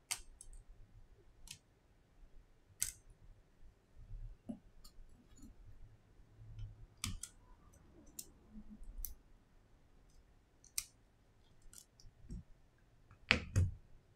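Small sharp clicks and taps of a spudger and tweezers working on an opened iPhone XS's internals and flex connectors, scattered irregularly. Near the end comes a louder cluster of knocks as the separated display and phone frame are handled and set down on a silicone mat.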